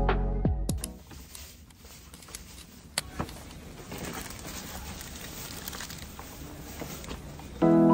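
Paper gift bag being handled, with faint rustling and a few light clicks, including one sharp tick about three seconds in. Background music fades out at the start and new music comes in near the end.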